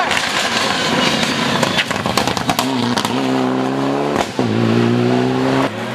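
Rally car going by at speed and accelerating away, with sharp crackles as it passes. Its engine note then rises through a gear, breaks at a shift about four seconds in, and climbs again.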